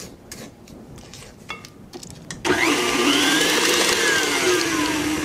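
A spatula scrapes and clicks against a glass mixing bowl. About two and a half seconds in, a tilt-head stand mixer's motor switches on and runs loudly, beating the creamed butter, sugar and egg batter, with a whine that climbs as it starts and then slowly falls.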